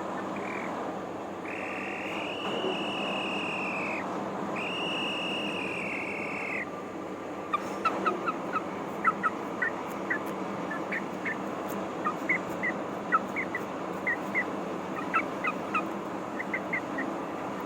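Young rooster giving two long, steady, high calls like a police whistle, each about two seconds, followed by a run of short, high cheeps several times a second.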